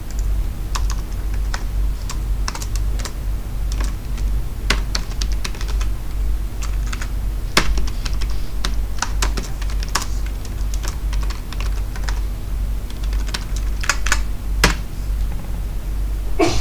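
Typing on a computer keyboard: irregular key clicks with a few louder strokes, over a steady low hum.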